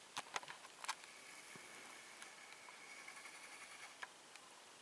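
Quiet snowy woods: a few soft crunching footsteps in snow in the first second, then the faint, steady, high whine of a camcorder zoom motor for about three seconds.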